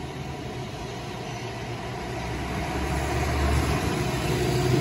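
An engine running, with a steady low hum, growing steadily louder.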